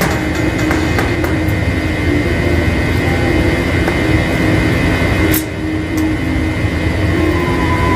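Steady mechanical drone of rooftop package air-conditioning units running, with a constant high tone over a low hum and a brief dip about five and a half seconds in.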